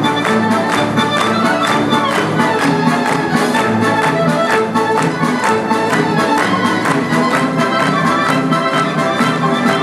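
Symphony orchestra with an accordion section, violins and brass playing live, with a steady beat.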